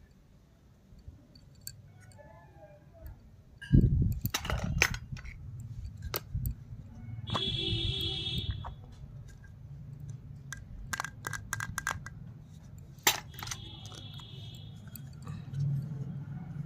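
Small plastic toy kitchen pieces being handled, with sharp clicks and taps of plastic on plastic and a heavier thump about four seconds in. A brief tone made of several pitches sounds near the middle and again shortly before the end.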